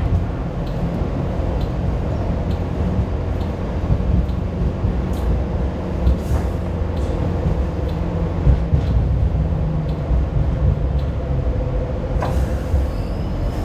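Kawasaki-built light rail train running along the track, heard from inside the trailer car: a steady low rumble with irregular clicks and knocks from the wheels on the rails. A brief higher squeak comes near the end.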